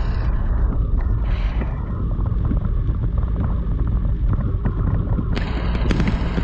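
Inside a pickup truck's cab driving through a heavy thunderstorm: a steady low rumble of road and wind noise, with rain pattering densely on the glass and roof.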